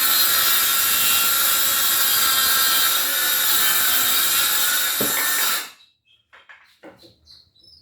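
DCA cordless circular saw cutting through wood with a steady high whine, stopping abruptly a little over five seconds in, followed by a few faint knocks.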